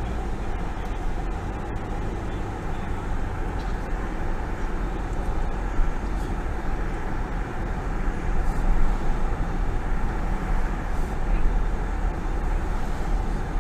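Steady vehicle engine and road noise heard from inside a moving car's cabin, a low rumble without any sharp events.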